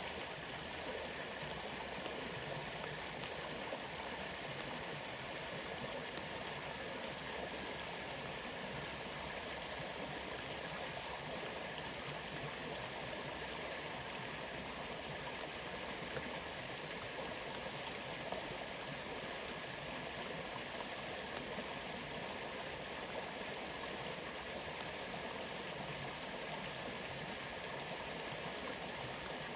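Waterfall: a steady, even rush of flowing water.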